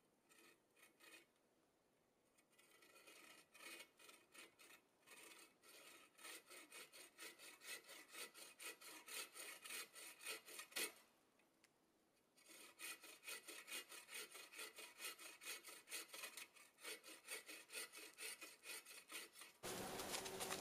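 Faint hand saw cutting a wooden pole in quick back-and-forth strokes, about three a second. The sawing stops briefly about eleven seconds in, then resumes until it cuts off near the end.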